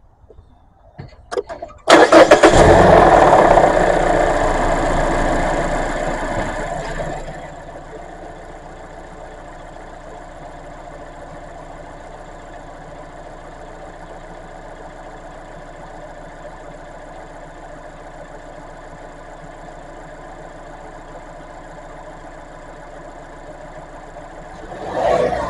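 Mazda CX-5's four-cylinder engine starting about two seconds in, freshly refilled with oil. It comes up loud at a fast idle, settles over about five seconds to a steady idle, and swells briefly near the end.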